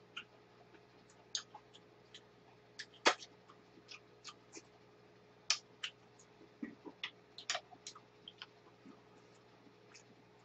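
Quiet eating sounds: irregular sharp clicks and taps of utensils and chewing, with one louder click about three seconds in.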